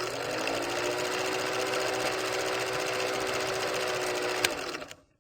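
A small motor running with a fast, even rattle. Its tone rises over the first half second and then holds steady; there is a sharp click near the end before it stops abruptly.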